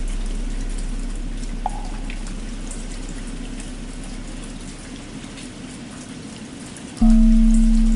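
Steady rain with the deep ring of a struck bell slowly fading, then the bell struck again about seven seconds in, loud and ringing on. A single short hollow knock, like a wooden fish, comes about two seconds in.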